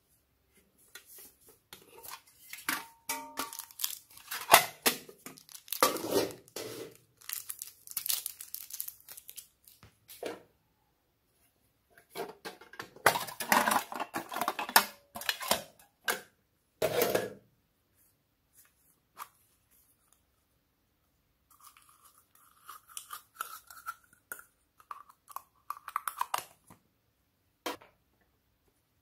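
Hands handling and opening plastic and tin packaging: rustling, crackling and tearing sounds in three bursts with quiet pauses between, as small foam pieces are tipped into a glass dish of foam beads.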